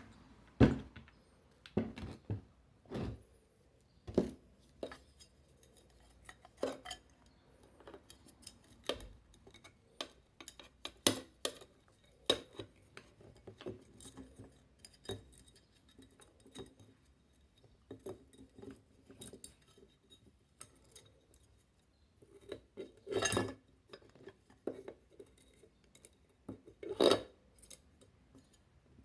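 Metal parts of an electric fan motor clinking and knocking together as the motor is reassembled by hand: irregular clicks and taps, with two louder knocks near the end.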